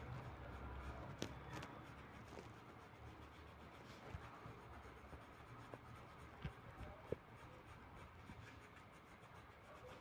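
Faint scratching of a coloured pencil shading on paper, with a few light clicks.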